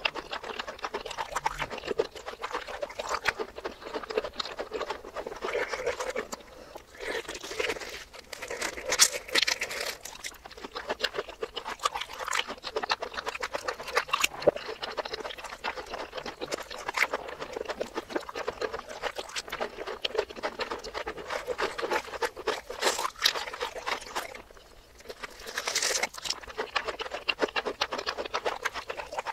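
Close-miked chewing and crunching of breaded fried mozzarella cheese balls in cheese sauce, played in reverse. It is a dense run of crackles and clicks, with a short lull a few seconds before the end.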